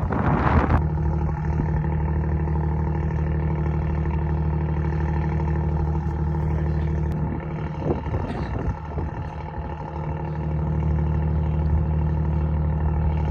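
Boat engine running steadily at a constant pitch, a low hum with a steady stack of tones. A brief rush of noise in the first second.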